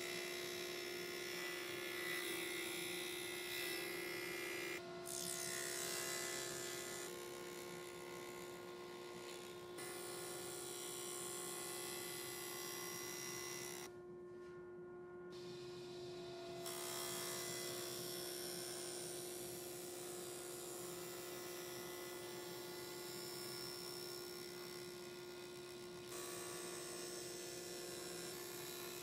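Table saw running with a steady motor hum as hard maple parts are pushed across it to cut dados. The cutting hiss shifts abruptly several times and drops away briefly about halfway through.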